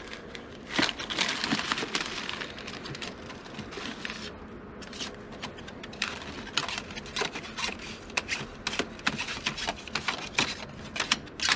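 A hand flipping through a stack of 45 rpm vinyl records, the discs clicking and clacking against one another, with crinkling of paper and plastic sleeves in the first few seconds.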